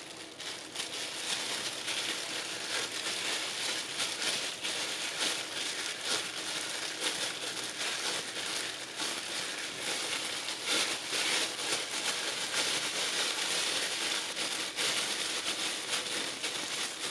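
Thin disposable plastic gloves crinkling and rustling without pause as the gloved hands fold and press soft dough around a ball of filling.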